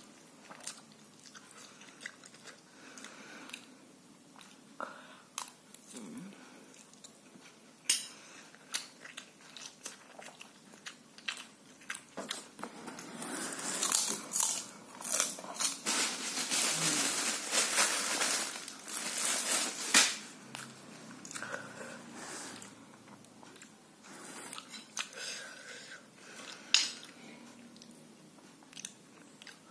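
A person chewing and biting mouthfuls of instant noodles, with sharp clicks of a fork against the plate scattered throughout. Around the middle the eating noise gets louder for several seconds.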